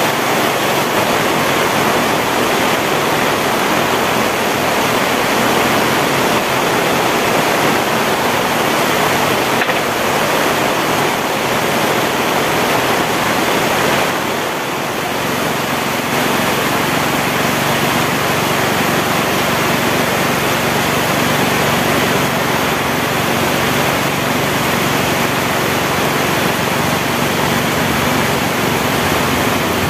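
Heavy tropical rain pouring down, a loud, even hiss with a brief slight lull about halfway through.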